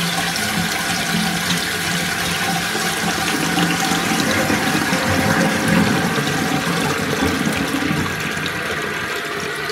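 Toilet cistern refilling through its fill valve after a flush: a steady rush and hiss of water into the open tank, easing slightly near the end.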